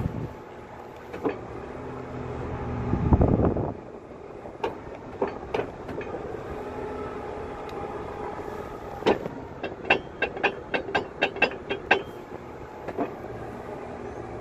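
Heavy wrecker's engine and hydraulics running steadily as the wheel-lift is worked from its wired remote, with a low surge about three seconds in. Near the end, a quick run of about ten sharp metallic knocks and clicks.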